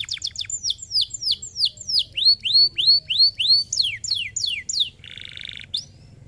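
Domestic canary singing in fast repeated phrases: runs of quick falling whistles, then a run of rising notes, then steeper falling notes. A short buzzy rattle comes about five seconds in, and the song stops just before the end.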